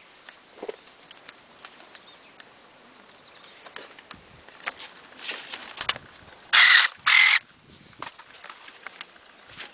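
Electric pruning shears working twice in quick succession, two short motor buzzes about half a second apart as the blade closes, with small clicks and rustles of cut dragon fruit stems around them.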